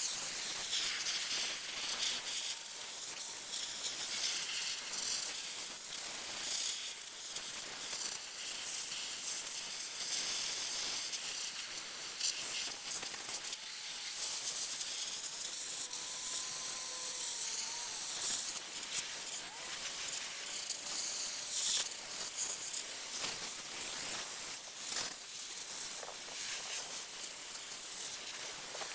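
Sandblaster nozzle spraying abrasive with a steady high hiss, with brief dips now and then as the blast is let off and resumed.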